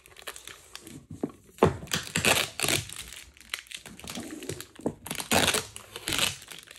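Tape being peeled off a cured resin bowl and crumpled, heard as irregular bursts of crinkling and rustling, with a few louder rips.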